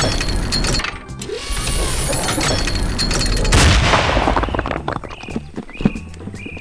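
Animated sound effects of a boulder being pounded in rapid, dense bursts, then a loud crash about three and a half seconds in as it shatters and the rubble falls away, over background music.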